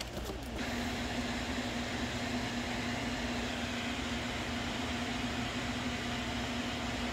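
Cooling fans of a running GPU mining rig, a steady whir with a low hum, setting in about half a second in.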